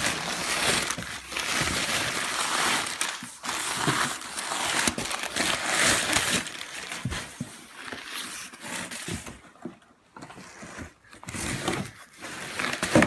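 Packing material crumpling and rustling as it is pulled out of a cardboard box by hand, then quieter scattered handling clicks for the last few seconds.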